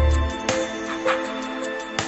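Instrumental background music: held notes over a beat struck about every three quarters of a second, with a deep bass note dying away in the first half-second.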